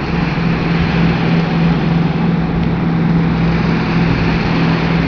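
Diesel engine of a Polesye-type river hydrofoil running at cruising speed, a steady drone with a constant low hum, under a rush of spray and water noise.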